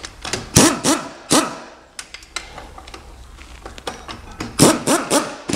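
Metal gearbox parts knocking and clinking as they are handled, with a few sharp knocks and brief scraping rings between quieter handling noise.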